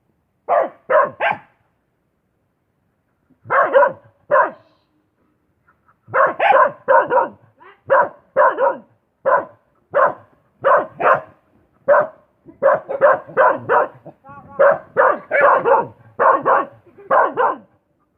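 A dog barking repeatedly: a quick burst of three barks, two more a few seconds later, then a steady run of about two barks a second.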